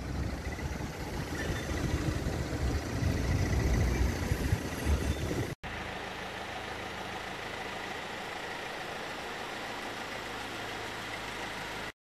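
Street traffic noise with an uneven low rumble, then after an abrupt cut about halfway through, a steadier, quieter hum of several cars idling. The sound cuts off just before the end.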